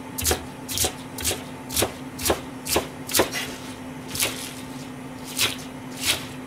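Chef's knife chopping leafy green stems on a plastic cutting board: a crisp cut and knock on the board about twice a second, the strokes spacing out after the first few seconds. A steady low hum runs underneath.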